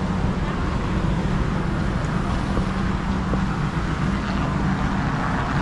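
Steady road traffic noise from a busy highway, a continuous low rumble and engine hum with no single event standing out.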